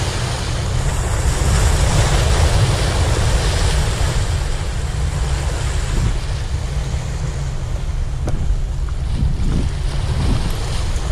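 Sea waves washing and breaking against the boulders of a rock breakwater, with a heavy low rumble of wind buffeting the microphone throughout.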